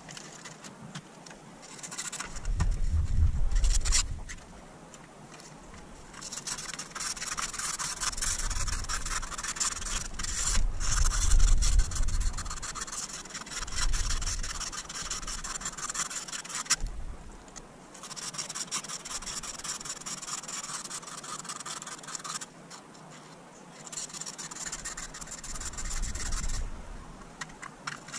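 Cardboard and paper packaging of a rearview mirror adhesive kit rustling and rubbing as it is opened and handled, in stretches of several seconds. Occasional low handling thuds come in between.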